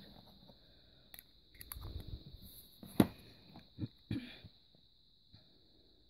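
Small metal candle tins being handled: a few light clicks and knocks, the sharpest about three seconds in, as one tin is put down and another picked up.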